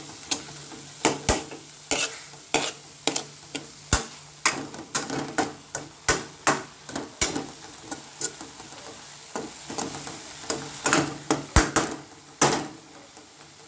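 A spoon stirring grated beetroot in a cheenachatti, knocking and scraping against the pan about twice a second, stopping near the end.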